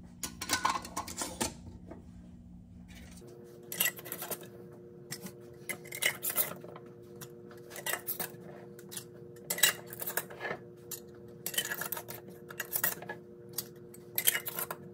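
Glass pint mason jars with metal lids and bands clinking and knocking against one another as they are handled and set down on the counter, in a dozen or so irregular sharp clinks over a steady low hum.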